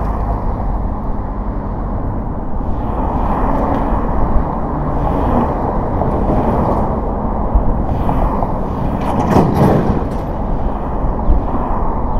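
Steady road noise from a car driving on city streets, a rumble of tyres and engine, swelling louder for a moment about nine seconds in.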